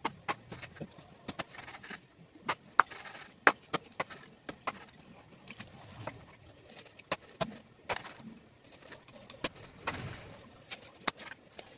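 Kitchen knife chopping through a large fish into steaks on a wooden chopping board: a series of sharp, irregular knocks, about two a second.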